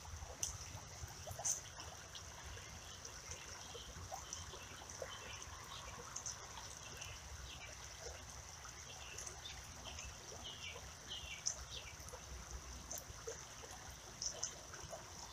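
Shallow creek water trickling, faint and steady, with scattered short high chirps over it.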